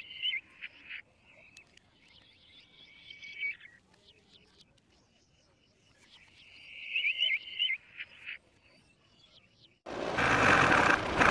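Three short spells of high chirping animal calls over a faint background. Near the end, a loud, steady engine noise starts suddenly, like a tractor running.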